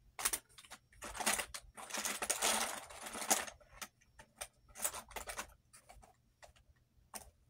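Makeup cases and packaging being handled and sorted: a dense run of small clicks, clatters and rustles over the first few seconds, then scattered clicks.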